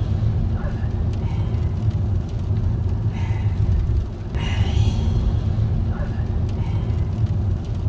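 Steady low road rumble of a moving car heard from inside the cabin, with short higher-pitched sounds recurring over it every couple of seconds.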